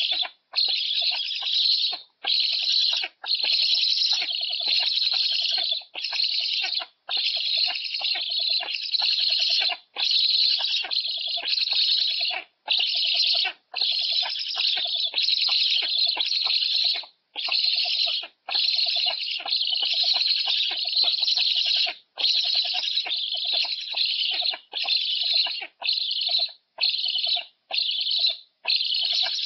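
Black storks calling on the nest: a harsh, rasping call repeated in runs of one to two seconds with short breaks between them, typical of young storks begging for food at a feeding.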